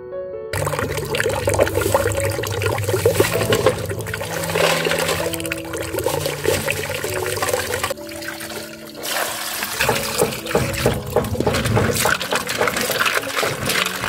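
Water running and splashing in an aluminium pot as rice snails are washed in it by hand, with a short break about eight seconds in. Soft background music plays underneath.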